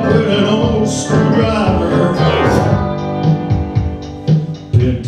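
Live song: a man singing with electric keyboard accompaniment, with a few sharp hits near the end.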